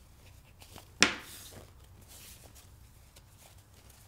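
Hands working a fabric tube filled with plastic beads while tying an overhand knot: faint rustling of the fabric, with one sharp click about a second in followed by a brief swish.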